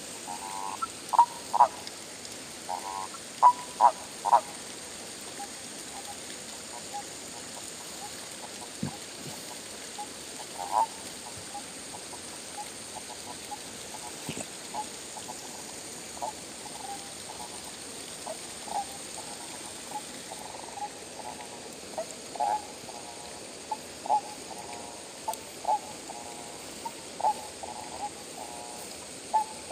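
Frogs calling: short croaks repeated at uneven intervals, some as quick pulsed rattles, with a loud cluster in the first few seconds and more frequent calls again near the end.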